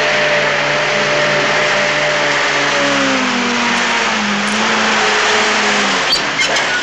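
Motor vehicle engine running under a steady hiss of road noise, its pitch slowly falling partway through as it eases off. A few sharp clicks near the end.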